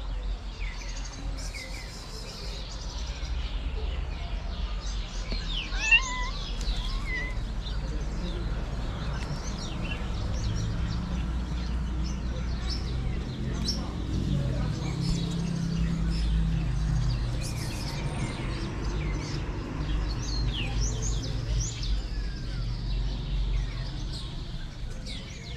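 Small birds chirping again and again over a low steady rumble, with a sharp tap and a short gliding call about six seconds in.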